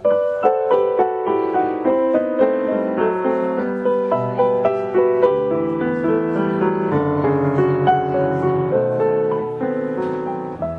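Background piano music: a melody of struck notes over chords, with lower bass notes coming in about four seconds in.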